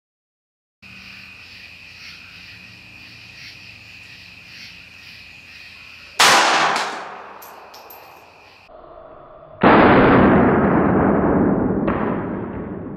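Bersa Thunder 380 Plus pistol firing a .380 ACP round: a sharp shot about six seconds in that dies away over about a second. It is followed by two more long, duller bangs that fade slowly over a few seconds, the first of them the loudest thing here. Before the shot there is only a faint steady background with a thin high tone.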